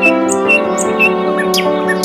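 Background music with sustained chords and short, high chirping notes that recur about every half second.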